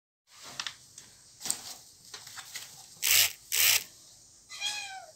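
A kitten meows once near the end, a short call falling in pitch. Before it come soft scuffles and two short, loud bursts of noise about half a second apart, the loudest sounds here.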